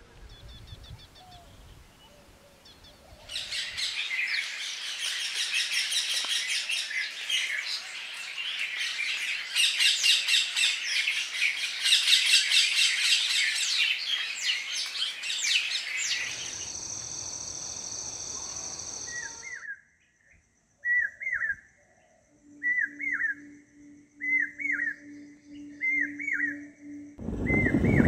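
Several kinds of bird calling one after another: a dense, loud high-pitched twittering chorus, then a steady high trill for a few seconds, then a short call repeated about once a second. A loud rushing noise comes in just before the end.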